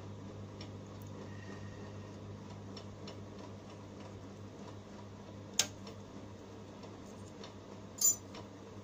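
Small metal repair tools clicking against a metal phone-board holder: faint ticks over a steady low hum, then two sharp clicks, one a little past halfway and a louder one near the end.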